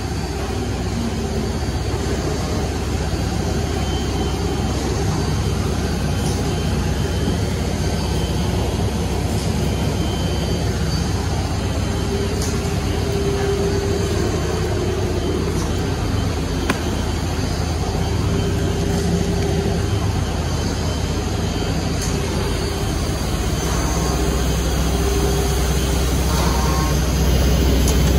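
Steady running noise of an S8CNC SK12V9 CNC router and its dust extraction at work, a continuous rush with a faint tone that comes and goes. It grows louder near the end.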